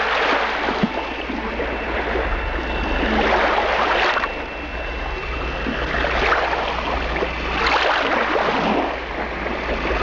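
Surf on a beach: waves washing in, the noise swelling and easing four times, about every three to four seconds, over a steady low rumble.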